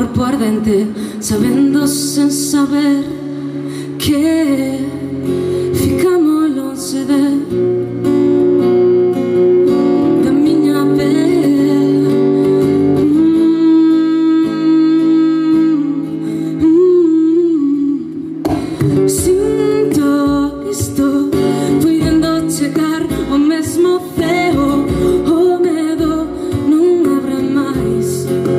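Live folk song: a woman's voice sings a slow melody over a strummed Crafter acoustic-electric guitar. About two-thirds of the way through, a bodhrán frame drum comes in with low, regular beats.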